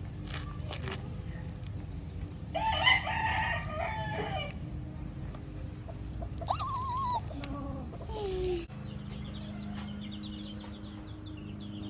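A rooster crowing once, loudly, about two and a half seconds in, followed by a shorter wavering chicken call and then a falling one. Near the end, faint, quick, high peeps repeat many times.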